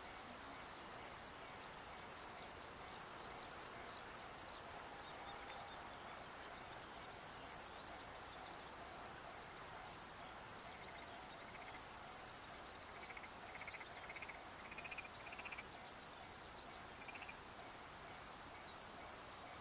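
Faint outdoor ambience: a low steady hiss with small animals calling, scattered high chirps in the first half and a short run of pulsed calls about two-thirds of the way in.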